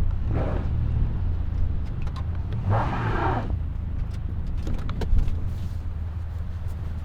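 Van stuck in deep snow, its engine running with two surges as it is revved, about half a second and three seconds in, the wheels spinning to build a track backwards. A few clicks near five seconds.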